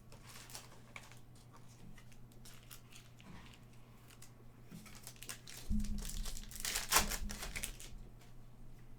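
Foil trading-card pack wrapper crinkling and tearing as cards are handled, soft rustles at first, then a thump about six seconds in and the loudest crinkling just after.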